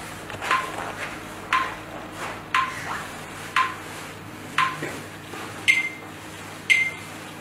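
Short electronic beeps about once a second over quiet room tone: five at one pitch, then two higher beeps near the end.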